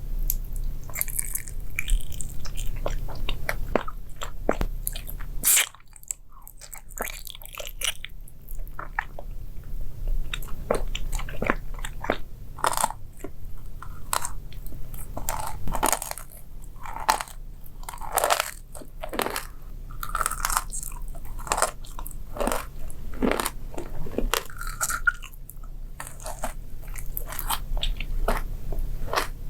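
Close-miked biting and chewing of crunchy food: an irregular run of sharp crunches.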